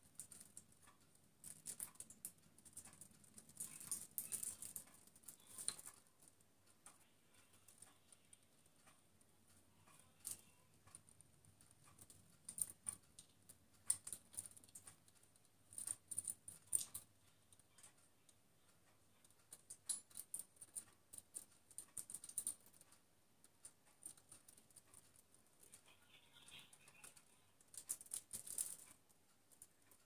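Faint, irregular light clicks, taps and small rattles: a budgerigar's beak and claws on a plastic hanging peg rack and its plastic chain as it climbs and nibbles.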